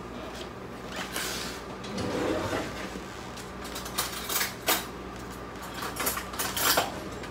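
Kitchen handling sounds: a scrape about a second in, then scattered light knocks and clinks of dishes or utensils, over a steady low hum.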